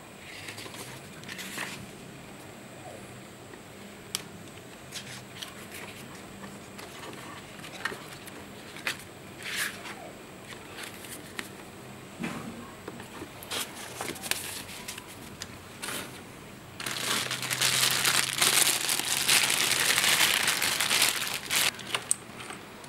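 Plastic packaging being handled: scattered rustles and clicks, then a loud stretch of continuous crinkling for about five seconds near the end.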